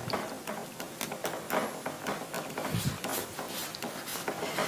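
Writing by hand: a run of quick, irregular scratchy strokes.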